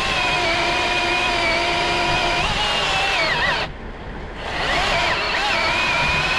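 Milwaukee battery chainsaw whining steadily at full speed. About three seconds in, its pitch sags and it cuts out for about a second, then it whines back up to speed and runs on.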